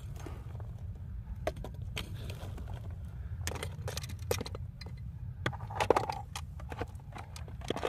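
Wind rumbling on the microphone, with scattered clicks and crunches of loose stones and gravel.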